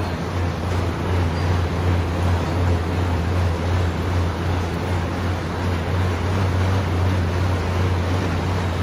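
StrongGear air bike's fan whooshing steadily as the rider works the pedals and handles, with a steady low hum underneath.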